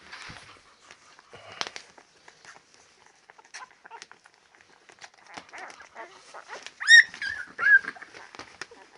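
Ten-day-old Labrador retriever puppies shuffling and snuffling, with one high squeal about seven seconds in followed by two shorter squeaks.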